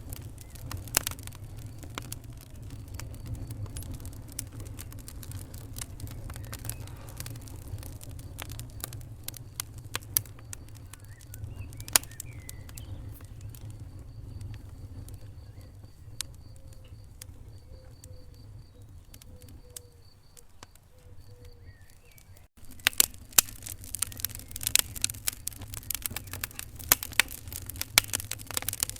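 Wood fire burning in a fireplace: irregular crackles and pops over a steady low rumble of the flames. About two-thirds of the way in, the crackling suddenly becomes denser and louder.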